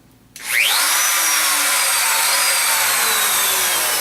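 Bosch 6176 router motor switched on about half a second in, spinning up within a fraction of a second to a high whine. It then runs steadily, with the flaky switch's cutting in and out not showing.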